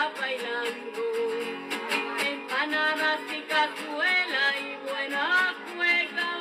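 Background music: a Chilean folk song accompanied by strummed acoustic guitar.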